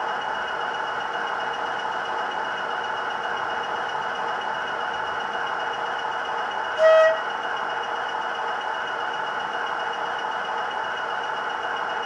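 O gauge model diesel locomotive's Loksound XL v4.0 DCC sound decoder playing a steady diesel engine idle through its small loudspeaker. About seven seconds in there is one short horn toot.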